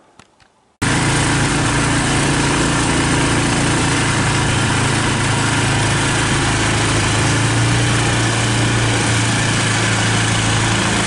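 Small air-cooled engine of a longtail boat motor running steadily under way, cutting in abruptly about a second in.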